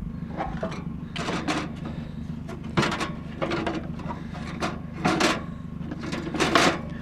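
Scrap items being handled: about six irregular clunks and scrapes, the loudest near the end. A vehicle engine idles steadily underneath.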